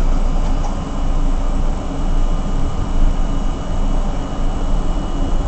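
Steady rumble and hum of an R32 subway car, with a faint high steady tone running through it.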